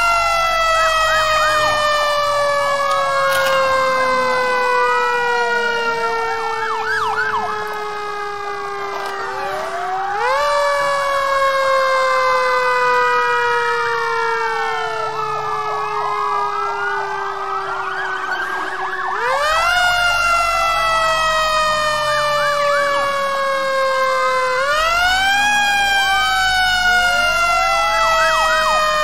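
Fire engine siren wailing. A main tone sinks slowly in pitch for several seconds, then jumps back up, three times over, while other siren wails sweep up and down across it.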